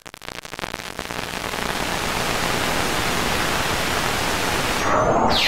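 Electronic music intro built from synthesized noise: crackles that thicken into a steady rushing static, swelling over the first couple of seconds. Near the end a fast falling sweep drops toward the beat.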